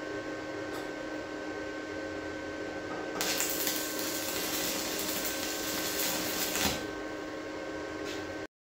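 Steady machine hum of several held tones; about three seconds in a loud, even hiss joins it for roughly three and a half seconds, and the sound cuts off abruptly near the end.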